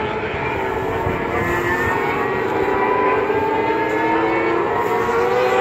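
Superbike engines running on the race circuit: a steady drone of several engines at once, their pitch gliding slowly upward toward the end.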